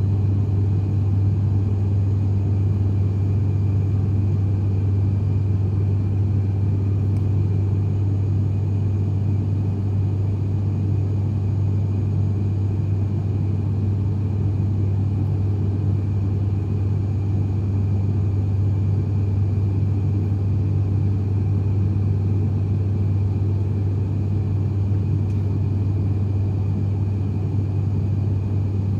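An ATR 72-500's PW127 turboprop engine and six-bladed propeller heard in flight from the cabin beside the wing: a steady, unchanging drone with a strong low propeller hum.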